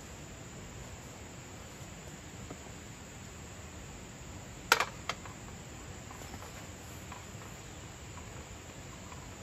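A metal pan set down on the pot support of a portable gas stove: one sharp metal clank about halfway through, with a lighter knock just after, over a steady background hiss.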